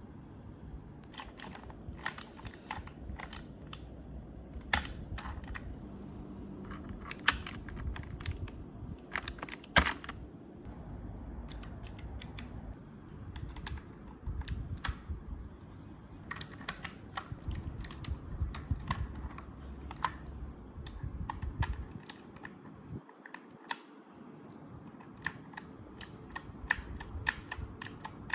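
Mechanical keyboard clicking irregularly as keys and keycaps are pressed and handled, with sharp clicks sometimes in quick runs over a low rumble of handling noise.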